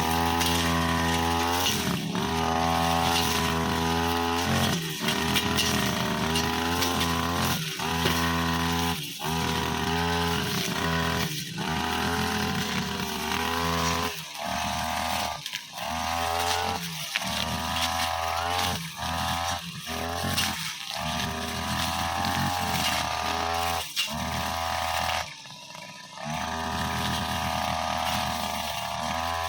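Brushcutter engine running hard with a metal blade cutting long grass and hard saplings, its pitch rising and falling as the throttle is opened and eased off, with many brief drops and one longer lull near the end.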